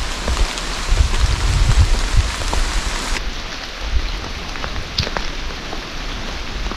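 Steady rain falling, with scattered single drops tapping close by and low rumbling bursts underneath.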